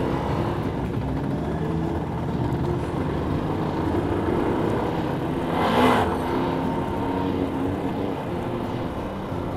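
Motorcycle riding at low speed through town: its engine note steps up and down over wind and road noise. There is a brief louder rush about six seconds in.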